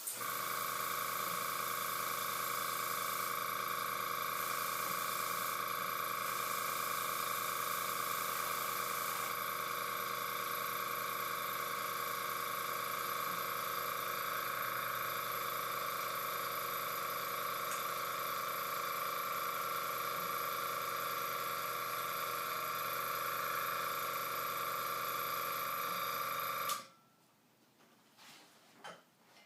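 TCP Global TC-20T airbrush compressor motor kicking on and running steadily with a high whine, then cutting off abruptly near the end. The cut-off is typical of the tank's pressure switch stopping the motor once the tank is full.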